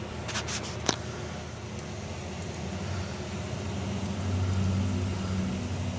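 Steady whir and hum of running desktop computer fans, with a few sharp clicks within the first second. About four seconds in, a low hum swells for a second or so and then eases.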